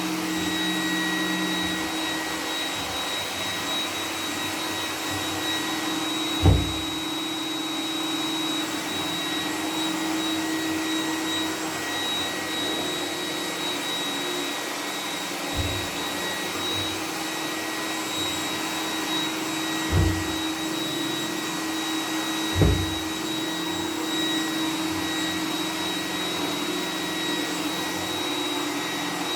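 iRobot Roomba 980 robot vacuum running in boost mode: a steady whir of its motors with a constant high whine, broken by four short, low thumps spread through the run.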